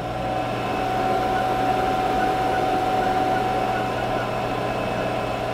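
Haas VF-2 CNC vertical mill's spindle running unloaded at 1000 RPM, a steady mechanical hum. A thin whine over it fades out about two-thirds of the way through.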